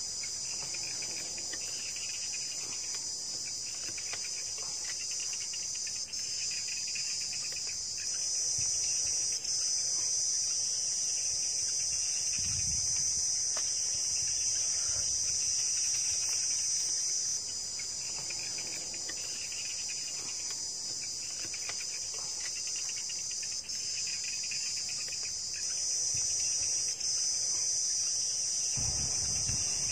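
Steady, high-pitched chorus of insects, unbroken throughout and stepping up and down in loudness a few times, with a fainter, lower pulsing call beneath it.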